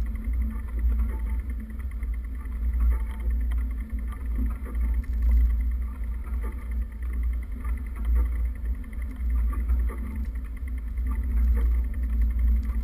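Steady low rumble of wind buffeting the microphone of a camera moving along a dirt trail, with a faint steady hum and scattered light ticks over it.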